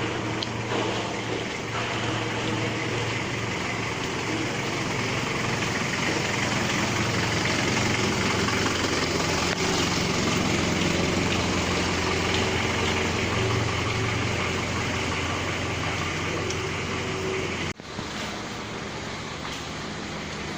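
A motor vehicle's engine running steadily at idle. It drops out for an instant near the end, then carries on slightly quieter.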